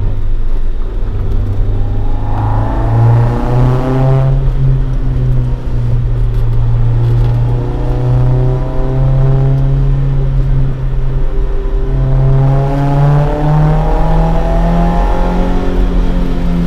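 AE86 Sprinter Trueno's swapped AE111 five-valve (20-valve) 4A-GE engine with four individual throttles, breathing through a Fujitsubo Legalis R exhaust, pulling under acceleration. Revs climb for a couple of seconds, drop at a gear change about four seconds in, hold fairly steady, then climb again near the end.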